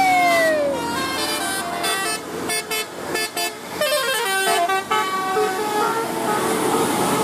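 Bus 'telolet' horn playing a tune: a long note sliding down in pitch in the first second, then a quick run of short tooted notes, with another downward slide about four seconds in.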